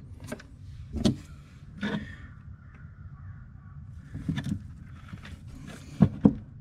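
Handling noise of hands working wires and a crimping tool on butt connectors: scattered light clicks and knocks, ending with two sharp clicks about a fifth of a second apart.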